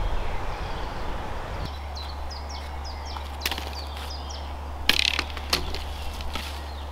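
A small bird chirping a run of short repeated high notes, with several sharp cracks and knocks of dry sticks being handled and snapped on the woodland floor, the loudest about five seconds in.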